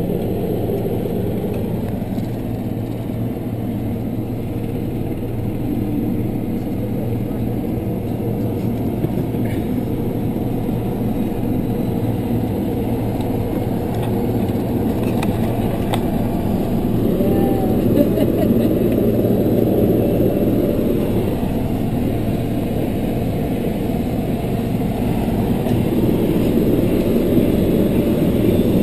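Helicopter engine and rotor running steadily on the ground, a continuous low mechanical noise that swells a little about two-thirds of the way through.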